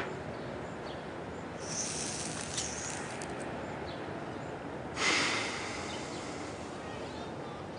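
A dog exhaling smoke: a sudden breathy blow about five seconds in that fades over a second, after a softer high hiss about two seconds in.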